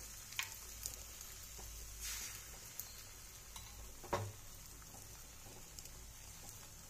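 Spiced egg batter sizzling steadily in mustard oil in a non-stick frying pan as it sets into an omelette. A few faint clicks and one light knock about four seconds in.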